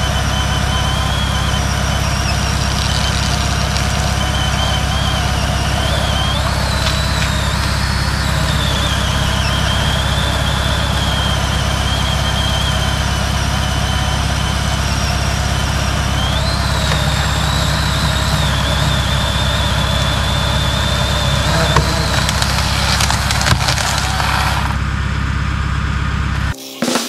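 Boom lift engine running steadily with a high wavering whine that rises twice. Near the end come sharp cracks and a crash as a big tree limb breaks and falls.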